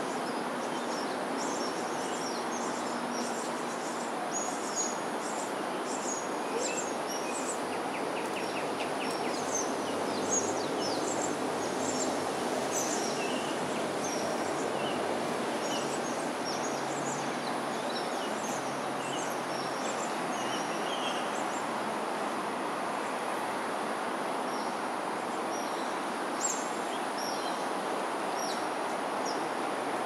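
Steady outdoor background noise with many short, high chirps scattered throughout, and a brief quick trill about eight seconds in.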